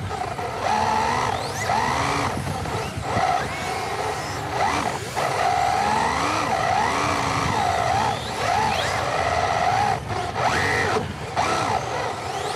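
Whine of RC drift cars' electric motors, rising and falling in pitch again and again as the throttle is worked through the slides, over a steady rushing noise.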